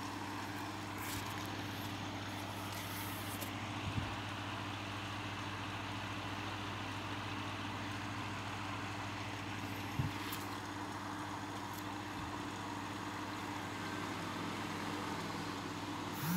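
Steady low hum with a faint hiss, and two faint clicks, one about four seconds in and one about ten seconds in.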